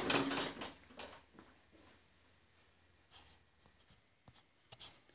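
Faint handling noise: a few short scrapes and rustles, mostly in the second half.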